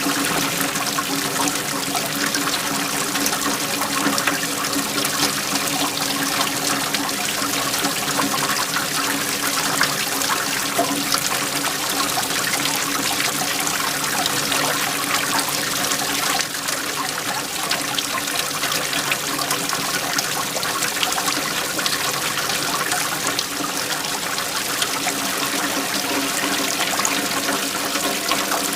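Waterfall: steady rushing and splashing of falling water, an even continuous wash with no breaks.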